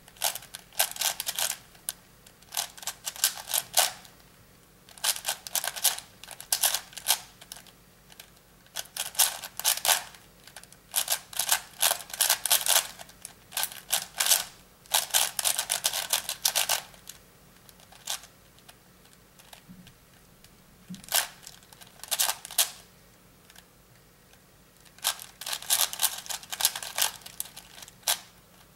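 ShenShou 5x5 speed cube's plastic layers clicking and clacking as they are turned quickly, in bursts of a second or two with short pauses between.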